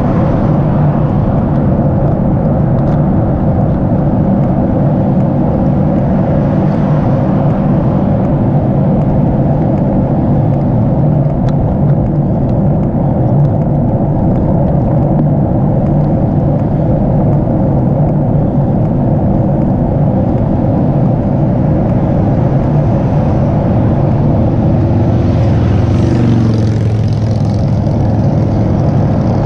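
Steady low rush of wind on the microphone of a moving bicycle. Near the end a car passes close by: its tyre hiss swells and a tone drops in pitch as it goes by.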